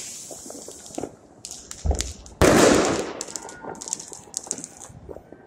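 Fireworks and firecrackers going off: scattered pops, then a heavy bang about two and a half seconds in that rings on for about half a second, followed by lighter crackling.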